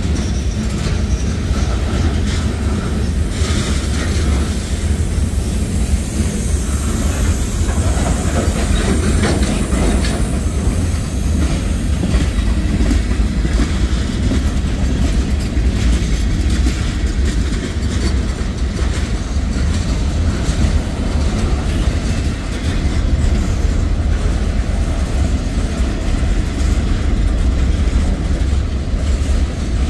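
Freight cars of a mixed freight train rolling steadily past, with a continuous low rumble and the wheels clacking over rail joints.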